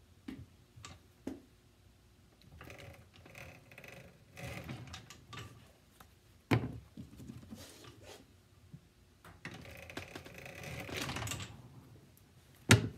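A cobbler's hand-lever 5-in-1 machine pre-cutting a rubber heel cap: two stretches of scraping and rustling as the rubber is worked and trimmed, scattered light clicks, and two sharp clacks of the machine, the louder one near the end.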